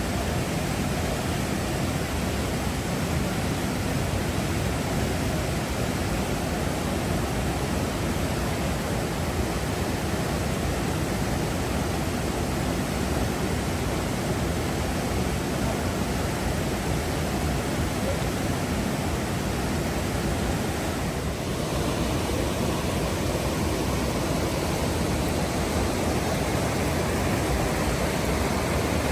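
Waterfall: a steady rush of falling water, with a slight brief dip about three-quarters of the way through.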